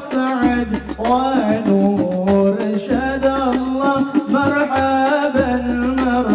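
Music: a voice singing a long, gliding melody over low bass notes that come and go about once a second.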